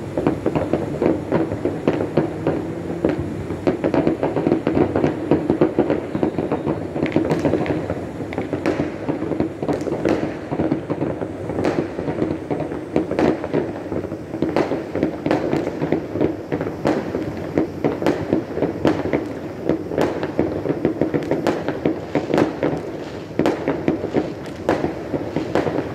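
Many fireworks and firecrackers going off at once across a neighbourhood: a steady low din of overlapping distant bangs, with frequent sharper pops and crackles that grow thicker after the first few seconds.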